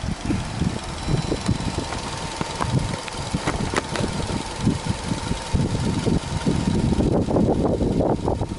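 Subaru Legacy Touring Wagon 2.0GT's EJ20 turbocharged flat-four engine idling, heard at the open engine bay, with a steady low rumble and a faint constant high tone above it.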